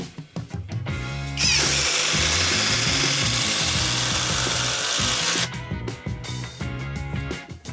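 Bosch 18V cordless impact driver running for about four seconds, starting abruptly about a second and a half in and cutting off, over background music.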